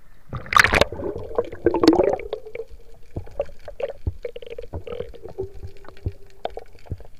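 Water splashing twice as the camera plunges through the sea surface, then the muffled underwater sound of the sea with scattered sharp clicks over a faint steady hum.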